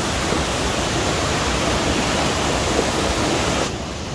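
Fast mountain stream rushing over boulders: a steady rush of water that gets a little quieter and duller near the end.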